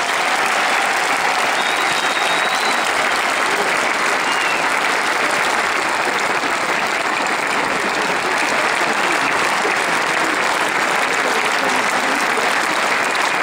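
Large arena audience giving an ovation: dense, steady applause that holds at the same level throughout.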